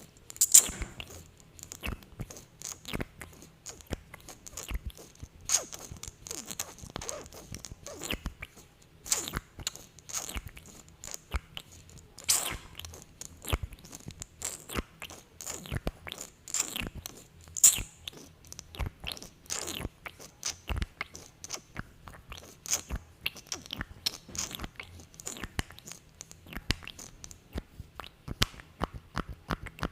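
Close-miked sticky lip sounds from glossed lips: a dense, irregular run of wet clicks, smacks and pops as the lips press together and pull apart, with a few louder pops.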